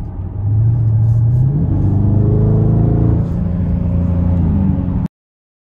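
Dodge Scat Pack's 6.4-litre HEMI V8 under hard acceleration, heard from inside the cabin: the revs climb, drop with a gear change about a second and a half in, and climb again before easing off. The sound cuts off suddenly near the end.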